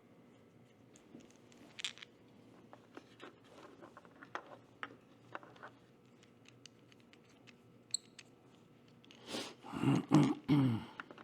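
Small screws and metal parts of a red-dot finder mount being handled: scattered light clicks and taps, with a louder bout of handling noise about nine seconds in.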